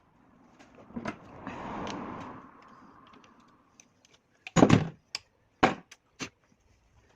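A soft rushing hiss that swells and fades, then a cluster of sharp knocks followed by two more single knocks, like parts or tools being handled during repair work on a stuck piston.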